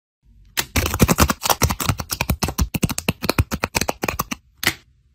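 Rapid crisp crackling and rustling of paper craft pieces being handled: a dense run of sharp clicks that lasts about four seconds, with one more burst near the end.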